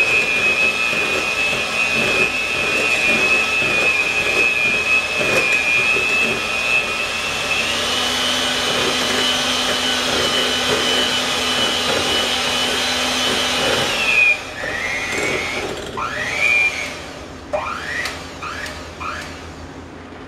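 Electric mixer beating cake batter, a steady high motor whine that steps up in pitch about a third of the way in and winds down about two-thirds of the way through. Then come several short, rising whirs as the motor is run up briefly a few times.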